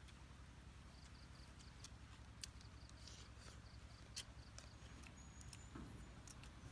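Near silence: faint outdoor ambience with a steady low hum, scattered soft clicks and, a second or so in, a short run of faint high ticking.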